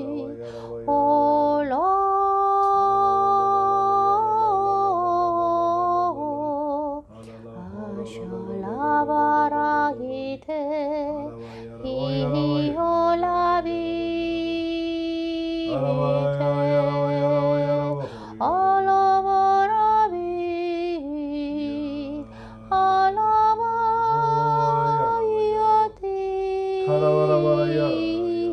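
A woman singing slowly, holding long notes with vibrato that step from pitch to pitch, over steady low sustained tones.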